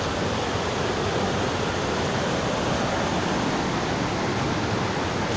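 Steady rushing of a waterfall's cascading water, heard from close by.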